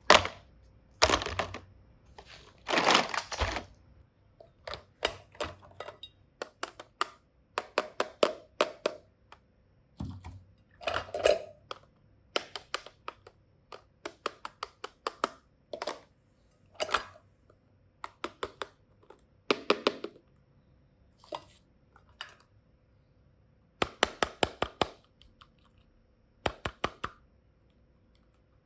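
Small plastic toy cases and containers being handled, opened and closed: an irregular string of sharp clicks, taps and knocks, some in quick clusters, with a longer rustle about three seconds in. A faint steady hum runs underneath.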